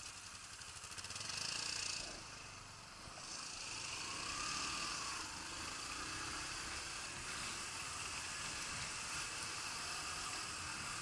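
Yamaha YBR125's single-cylinder 125 cc four-stroke engine running at low speed in stop-and-go traffic, with wind and road noise on a helmet-mounted microphone; it swells briefly about a second in.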